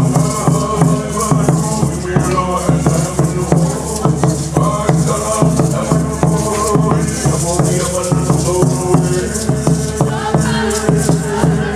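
Hawaiian hula music with a steady, pulsing beat and pitched melody, with shaken feathered gourd rattles (ʻuliʻuli) keeping time.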